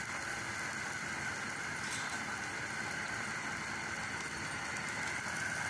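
Steady, even rushing noise of a lit gas-stove burner heating an iron tawa as a maize-flour roti cooks.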